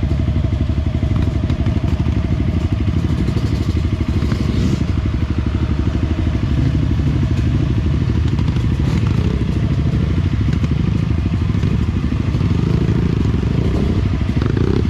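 Enduro dirt bike engine running steadily, its firing pulses continuous and even throughout.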